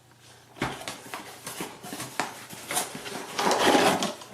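Handling noise: a run of small clicks and knocks, then a louder rustle and scrape about three and a half seconds in, as a small plastic object is picked up and moved.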